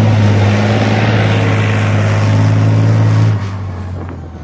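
Tracked main battle tank driving past through mud: a loud, steady low engine drone over the noise of its tracks and running gear. About three seconds in, the drone drops away and the sound fades as the tank moves off.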